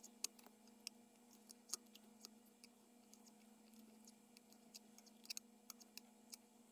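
Near silence broken by faint, irregular small clicks and ticks as a brass rod pushes clothesline rope into a chainsaw's cylinder, over a faint steady hum.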